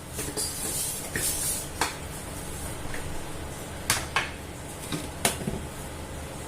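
A few sharp, isolated clinks and taps of kitchen utensils against dishes, over a low steady hum.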